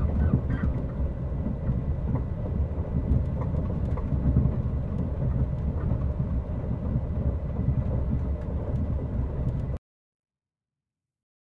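Passenger train rolling along the rails, heard from inside the carriage: a steady low rumble with faint clicks, which cuts off suddenly near the end.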